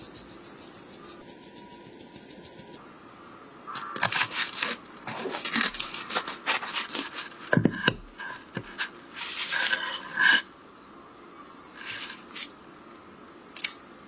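A knife sawing through the crisp toasted crust of a thick bread loaf: crackling, crunching and scraping strokes, starting a few seconds in and ending about ten seconds in. Before that there is faint, rapid, even tapping from a fine sieve dusting crumbs.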